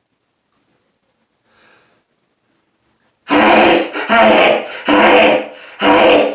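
A man's loud sneezes in a rapid string, four in quick succession about a second apart, beginning about three seconds in after a near-silent stretch with one faint breath.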